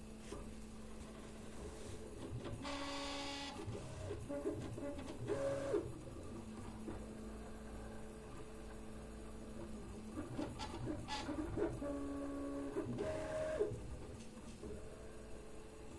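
Prusa MK3S+ 3D printer running in stealth mode: its stepper motors hum in steady tones that change pitch with each move, with a harsh rattling, grinding noise that swells louder about three seconds in and again from about eleven to fourteen seconds. The noise persists with freshly replaced, oiled linear rods and bearings and no faults detected; the owner fears some part is wearing down.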